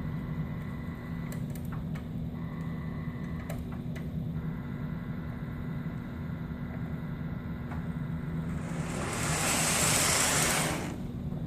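Lionel R-30 model subway train running along its track with a steady electric hum and a few faint clicks. About eight and a half seconds in, a hiss rises and lasts about two seconds.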